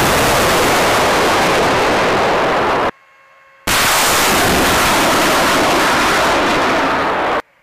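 Two rocket launches from a multiple launch rocket system. Each is a loud, steady roar lasting about three and a half seconds that cuts off abruptly; the second starts just after the first stops.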